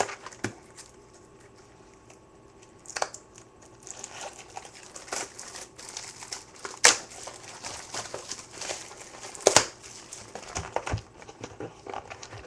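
Topps Chrome baseball card packaging being opened by hand, crinkling and tearing. It is sparse for the first few seconds, then crinkles continuously from about four seconds in, with two sharp louder snaps.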